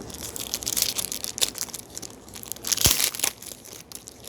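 Trading-card pack wrapper crinkling and crackling as the packs and cards are handled, with a louder cluster of rustling and a soft knock a little before three seconds in.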